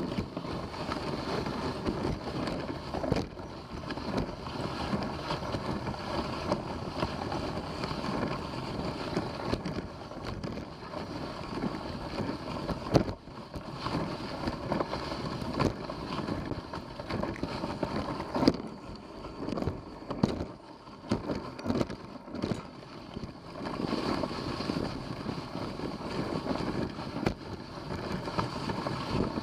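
Dog sled running over a snow trail: a steady rush of the runners on snow, with wind buffeting the microphone and scattered knocks and bumps, one louder knock about 13 seconds in.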